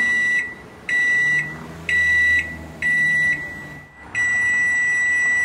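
Electronic beeping: four short, high beeps about a second apart, then one long beep lasting about two and a half seconds.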